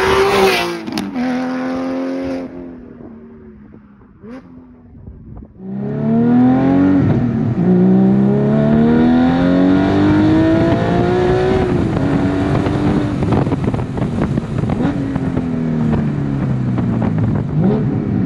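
Porsche 718 GT4's 4.0-litre flat-six through a race exhaust and sport headers, first passing by at speed, its note dropping in pitch and fading away. Then, heard from inside the cabin, it accelerates hard, the pitch climbing and dropping back at each upshift, and winds down near the end.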